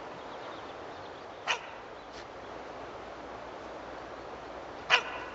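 A dog barking in single sharp barks: one about a second and a half in, a fainter one soon after, and another loud one near the end.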